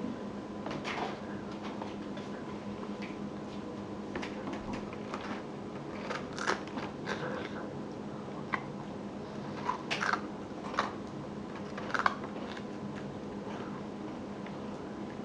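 A person biting and chewing something crunchy: scattered short crunches, a few louder ones about six, ten and twelve seconds in, over a steady faint hum.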